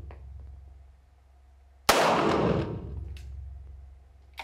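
A single 9mm Luger pistol shot about two seconds in, from a 2011-style HPS Fivetac firing a 115-grain round-nose load: a sharp crack followed by a long echoing tail off the walls of an indoor range. A faint click comes about a second after the shot.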